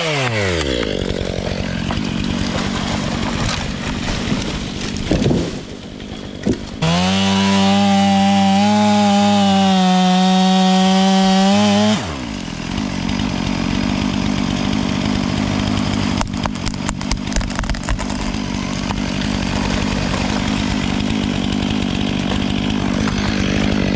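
Two-stroke chainsaw felling a maple tree. It drops from a high rev at the start and runs unevenly, then holds a steady high pitch for about five seconds. At that point it pulls down in pitch and keeps running rougher under load in the cut.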